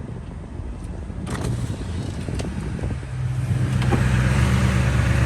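Duramax LBZ 6.6-litre V8 turbo-diesel pickup engine running, getting louder as it pulls harder about three seconds in, with a couple of short knocks.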